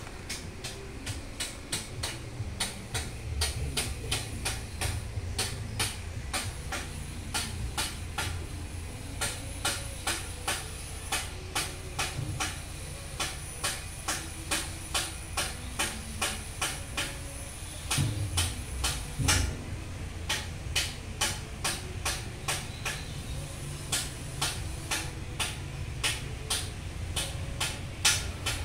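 A machine running: a steady low hum with sharp, evenly spaced clicks about twice a second.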